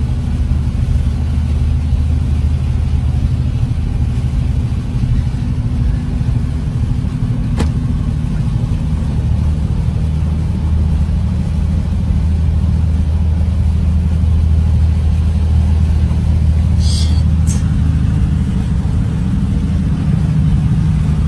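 Steady low drone of a vehicle's engine and running noise heard inside the cabin while it drives through floodwater, with one sharp click about a third of the way in.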